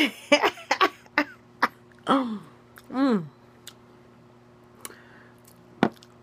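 A woman's short throaty vocal sounds without words: several quick ones in the first second or so, then two longer pitched ones around two and three seconds in, one falling and one rising and falling. A single sharp click comes near the end.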